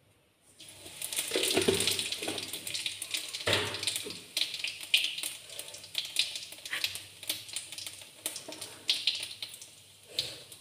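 Spices crackling and sizzling in hot mustard oil in a kadhai. The sound starts suddenly under a second in, a dense hiss with many sharp pops, and thins towards the end.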